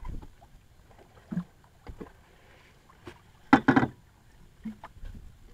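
Irregular knocks and bumps on a small boat's hull, a few light ones and a loud double knock about three and a half seconds in.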